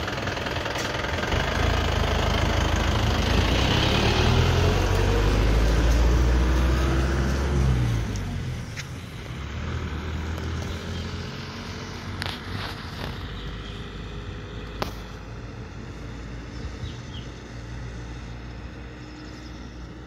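School bus diesel engine running close by and revving up as the bus pulls away, rising in pitch, then fading about eight seconds in as the bus drives off up the road.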